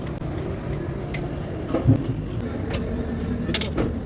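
Machinery running with a steady low hum, with a few short knocks, the loudest about two seconds in and another sharp one near the end.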